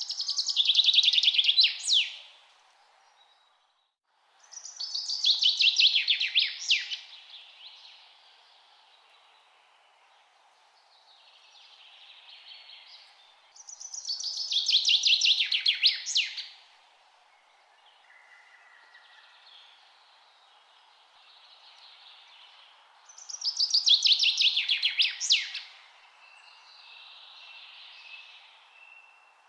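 A songbird singing a loud song four times, each about two and a half seconds long: a fast run of notes falling in pitch and ending in a sharp flourish, repeated about every nine seconds. Fainter bird calls come in between, over a steady background hiss.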